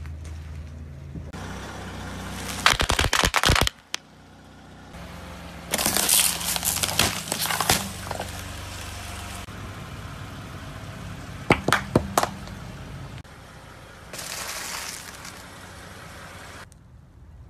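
A car tyre rolling slowly over and crushing a series of objects, including a plastic ketchup bottle squashed flat, in several separate bursts of cracking, crunching and popping. A sharp double crack comes near the middle. A car engine runs low and steady underneath.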